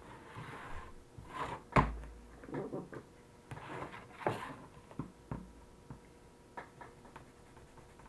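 Rubbing and handling noises as a dock power cord and its plug are scrubbed clean with a cloth: short scrubbing swishes and irregular knocks of the plug and cord against the workbench, the loudest a sharp thump about two seconds in.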